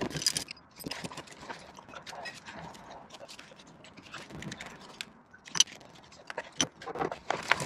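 Irregular metallic clicks and clinks of a combination wrench and socket ratchet working the bolts of a bronze prop shaft coupler, loosening them to disconnect the shaft from the transmission. The clicks are dense at first, sparse in the middle, with a few sharper ones near the end.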